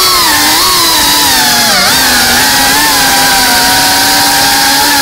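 FPV racing quadcopter's brushless motors and propellers whining as it flies, the pitch wavering with the throttle, dipping briefly a little before two seconds in, then holding steady.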